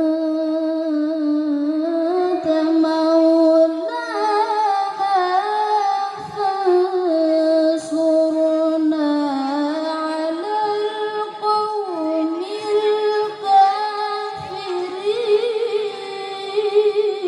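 A single high voice singing unaccompanied, holding long notes and sliding between pitches in ornamented turns.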